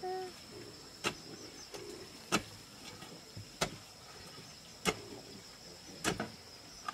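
A hand tool chopping into packed clay soil in regular strokes, five sharp strikes about a second and a quarter apart.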